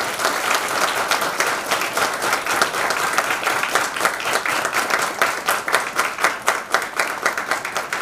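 Audience applauding in a hall: many people clapping together, the claps thinning out and becoming more separate near the end.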